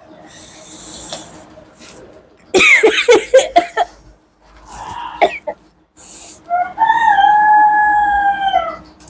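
Snuff powder being sniffed hard up the nose in a long hissing inhale, then coughing and spluttering and another short sharp sniff. Near the end comes a long drawn-out vocal cry held for about two seconds.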